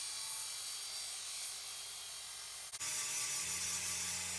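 Small high-speed grinder running with a steady high whine as it grinds off rusted screws. About three seconds in the sound changes abruptly to a steadier running note with a low hum underneath.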